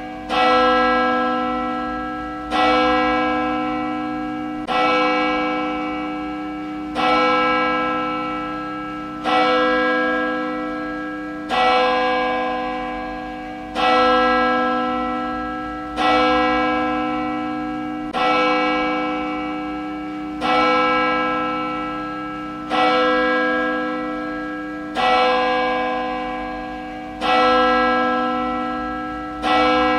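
A single church bell tolling steadily, struck about every two and a quarter seconds. Each stroke rings on with the same deep, many-toned hum and fades before the next one lands.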